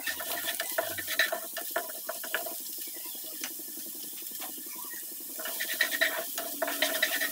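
Crushed garlic sizzling in hot oil in a non-stick kadai, being lightly browned. A wooden spatula scrapes and taps the pan as it stirs for the first couple of seconds and again near the end, with only the sizzle in between.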